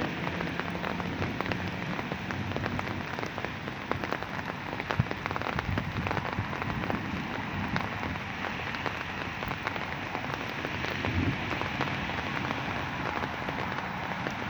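Steady rain from a summer thunderstorm falling, with many separate drops hitting hard surfaces as sharp little clicks over the even hiss.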